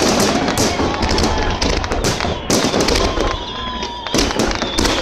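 Festive fireworks salute going off overhead: a rapid, irregular string of loud shell bursts and crackles, several each second, with crowd voices underneath.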